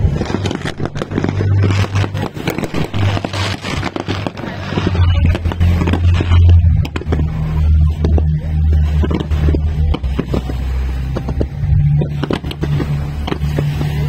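Fireworks popping and crackling over music with a deep bass line that steps from note to note. The bass gets louder about five seconds in, and the cracks thin out after that.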